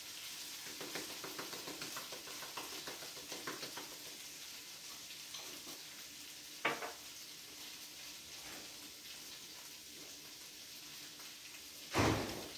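Diced potatoes sizzling in bacon fat and oil in a stainless steel skillet, with light ticks from seasoning and stirring. A sharp click sounds about halfway through, and a brief louder knock near the end.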